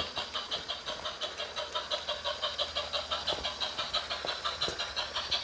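LEGO 2-8-0 model steam locomotive running along plastic LEGO track, making a fast, even clatter of about seven beats a second.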